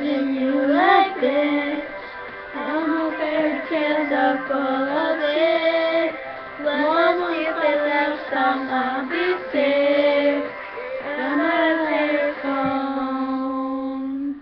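Girls' voices singing a pop melody in long, held notes that waver slightly, cutting off abruptly at the end.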